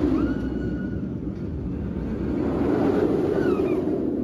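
Inverted steel roller coaster train rumbling along its track overhead, the roar swelling at the start, easing, then swelling again about three seconds in before fading. A few faint high-pitched wails sound over the rumble.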